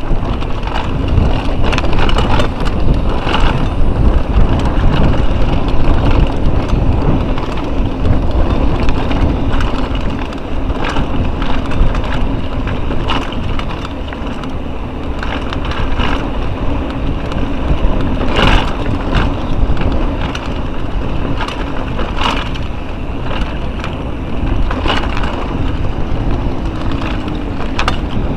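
Mountain bike ridden fast over a rough dirt trail: tyres rumbling and the bike rattling, with wind buffeting the camera microphone and frequent sharp knocks as it hits bumps.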